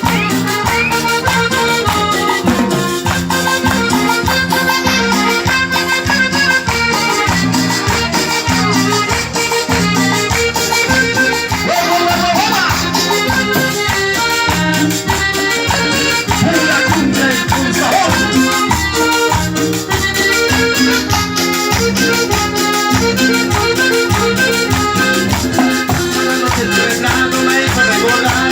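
Instrumental section of a cumbia played live by a band: an accordion melody over a steady beat with shakers.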